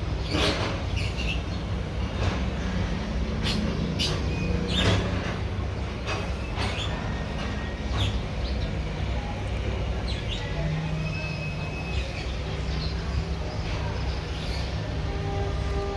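Suzuki Grasstracker Bigboy 250 engine running at a steady low drone, with scattered clicks and knocks over it.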